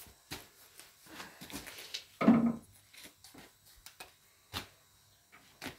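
Handling noise from a small plastic bottle of linseed oil: scattered light clicks and rubs as its cap is worked open, with one louder, longer rub about two seconds in.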